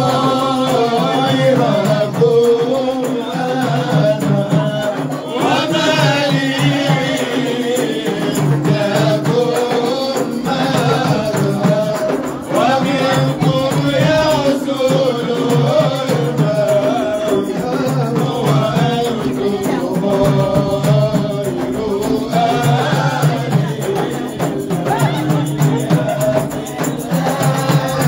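Festive group singing over a steady shaking rattle and tambourine-like hand-percussion beat.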